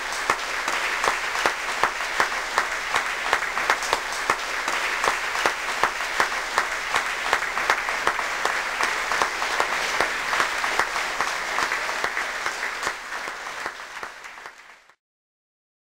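Theatre audience applauding at the curtain call, the clapping falling into a steady rhythmic unison beat of about three claps a second. It fades near the end and cuts off suddenly.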